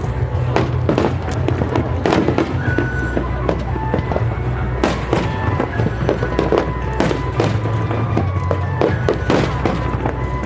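Aerial fireworks bursting in quick succession, with many sharp bangs and crackles close together, over background music.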